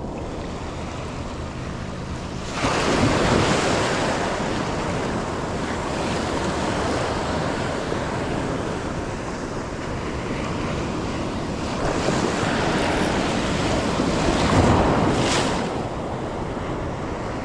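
Ocean surf breaking on a beach, a steady wash that swells as a wave breaks about two and a half seconds in and again near the end, with wind buffeting the microphone.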